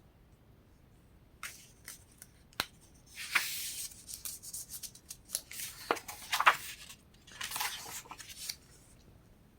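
Glossy book pages being handled and turned: a run of crisp rustles, swishes and sharp paper clicks from about a second and a half in until near the end.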